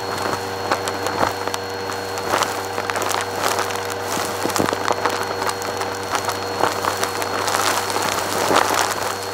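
Bissell Purple Helix vacuum running steadily with its open hose sucking up a pile of lint, dust, glitter and sequins. Irregular crackles and ticks come through the steady motor hum as debris rattles up the hose.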